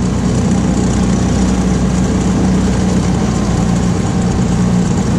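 Tohatsu 15 hp outboard motor running steadily at low speed, a constant low hum.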